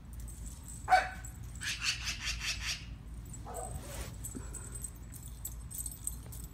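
A dog gives one sharp bark about a second in, then a magpie chatters in a rapid rattling run for about a second. Another short, quieter call from the dog follows midway.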